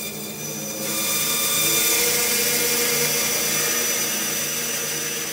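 Bandsaw running with a steady whine of several tones. About a second in, the blade starts cutting into the jig's sled base, adding a louder rushing cutting noise that holds through the cut.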